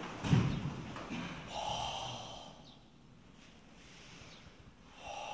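A martial artist thrown to the hall floor lands with a dull thud. This is followed by short, forceful breathy exhalations about a second and a half in and again near the end, as the practitioners strike and throw.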